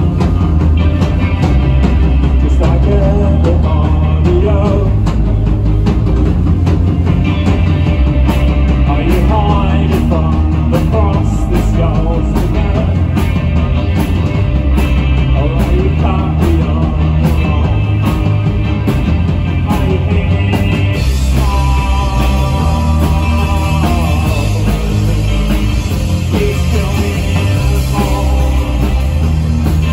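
Rock band playing live and loud: electric guitars, bass and drums, with a male singer's vocals.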